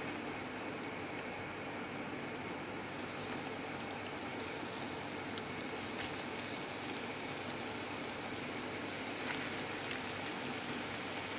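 Hot oil sizzling and crackling as breadcrumb-coated chicken kebabs are laid into a shallow frying pan and start to fry. The pops grow more frequent from about three seconds in, as more kebabs go in.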